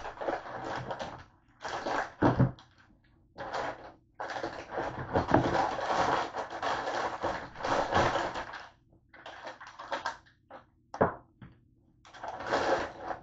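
Things being handled: irregular rustling and scraping in short and longer bouts, with one heavy knock about two seconds in.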